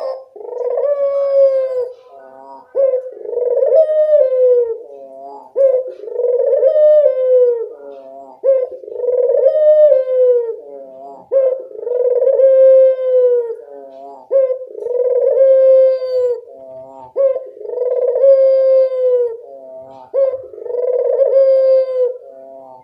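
A Barbary dove (burung puter) cooing in full, lively song. It repeats the same phrase about every three seconds: a short note, then a long, drawn-out coo that falls slightly at the end.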